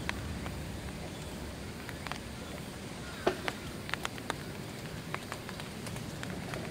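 Scattered small clicks and taps of sticks and debris being handled against a metal pot, over a steady low background hum. The clicks cluster about three to four and a half seconds in.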